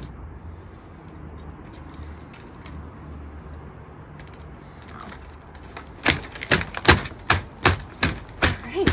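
Staples snapping out of an upholstered chair's frame one after another as the velvet dust skirt is ripped off with pliers. A quick run of sharp snaps, about two or three a second, begins about two-thirds of the way in, after a few seconds of faint handling.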